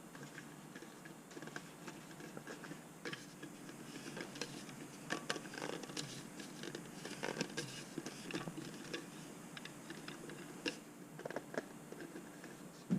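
Stainless steel quick-disconnect fitting being screwed by hand onto the plastic threads of a foam cannon head: faint, irregular small clicks and scrapes of metal on plastic.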